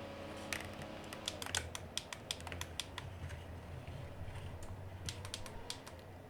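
Keys being pressed on an Aula F99 Pro mechanical keyboard: a run of irregular clacks starting about half a second in, a few each second.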